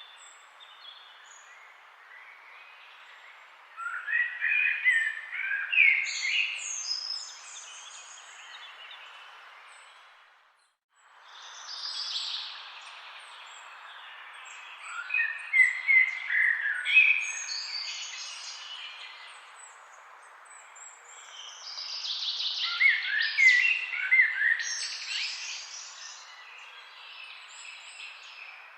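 Several songbirds singing in bouts of quick, warbling chirps over the steady rush of a flowing forest river. The whole sound briefly fades out and back in about ten seconds in.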